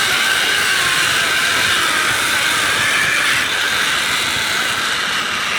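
Zip-line trolley pulleys running along the steel cable with a high whine that drifts slightly in pitch, over a steady rushing noise.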